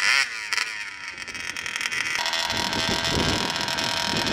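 RCMAX 80cc two-stroke gas engine of an RC monster truck: a brief swing in engine pitch at the start, then from about two seconds in a steady idle with wind buffeting the microphone.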